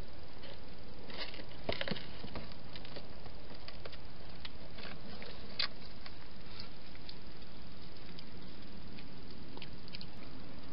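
A wild hedgehog moving about a plastic feeding box and scratching and clicking as it goes: a cluster of small clicks about a second or two in, then scattered ticks, over a steady hiss.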